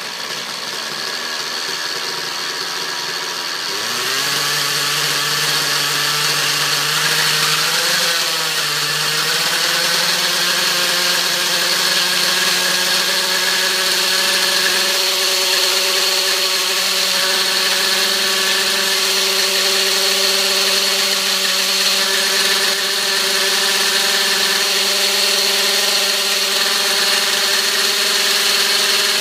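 Nitro glow engine of an Align T-Rex RC helicopter running steadily on the ground, its exhaust run through a homemade add-on silencer, so most of the tailpipe noise is gone and mainly the engine's own mechanical noise is left. About four seconds in, the engine note grows louder and steps in pitch, then it holds steady.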